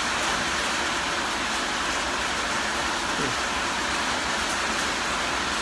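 Heavy rain mixed with a little hail beating down, a steady, deafening hiss.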